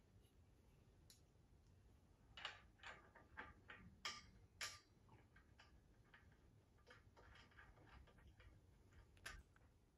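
Near silence broken by faint, irregular small clicks and ticks as hands work small parts at the top of a telescope tripod head, the loudest about four to five seconds in.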